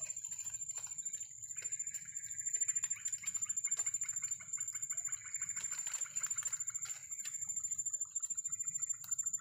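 Night-time swamp chorus of calling creatures: a steady, high-pitched insect trill throughout, with other rapid pulsing calls coming and going.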